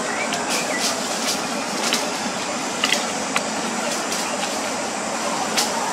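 Dry leaf litter and twigs crackling in short, scattered rustles over a steady hiss of forest background noise.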